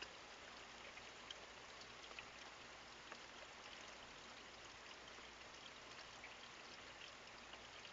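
Faint steady hiss of light, tapering rain and dripping water, with a few scattered soft drips.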